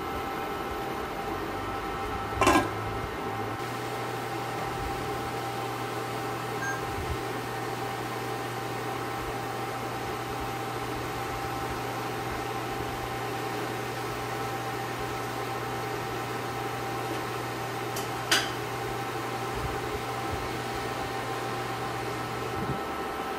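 Induction cooktop heating a covered wok of water: a steady hum from its cooling fan and coil, with a thin high whine over it. Two short sharp clinks break in, one about two and a half seconds in and one near eighteen seconds.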